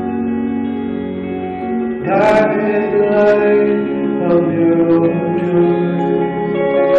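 Live song performance with an electric guitar, its sustained notes ringing together. The music shifts about two seconds in, when new notes come in with sharp attacks.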